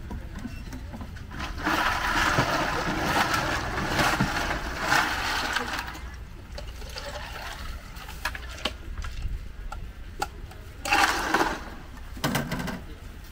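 A drink being poured into a cup: a pour lasting about four seconds, then two short bursts of liquid near the end.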